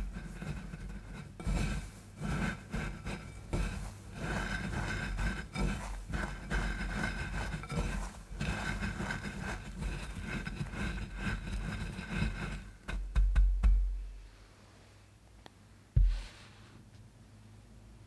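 Panko bread crumbs rustling and crunching as hands press and roll them onto a batter-coated corn dog in a glass dish. The crunching goes on for about twelve seconds, then a few low thumps and it turns quiet, with one more low thump near the end.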